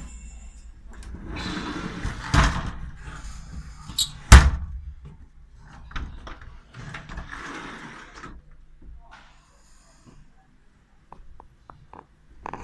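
A door or lid inside a horse float's living compartment being handled: two loud knocks, the second about four seconds in the louder, with rustling between them and a few light clicks near the end.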